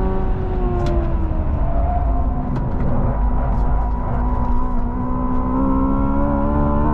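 Hyundai Ioniq 5 N dual-motor electric car heard from inside the cabin at track speed, under heavy road and tyre rumble. Its pitched drive sound falls as the car brakes for a corner, then rises again about five seconds in as it accelerates out.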